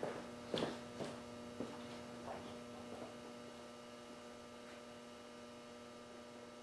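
Steady low electrical hum with a few faint clicks and knocks in the first three seconds; no shot is fired.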